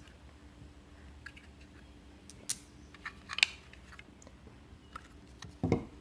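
Small round magnets being pulled off a metal plate and handled: a few soft, sharp clicks spread over several seconds, the sharpest about three and a half seconds in, over light handling noise.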